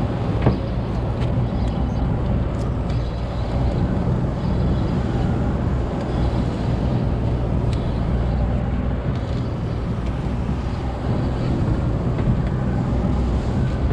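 Small boat's outboard motor idling steadily, with wind and sea noise.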